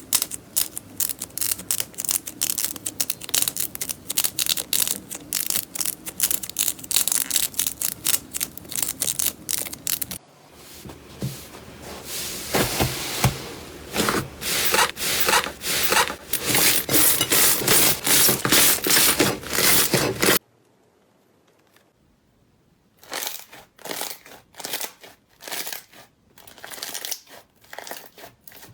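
Slime being pressed and stretched by hand, giving quick runs of crackling and popping clicks. The texture changes abruptly about ten seconds in, the sound cuts out for a few seconds a little after twenty seconds, and sparser pops follow.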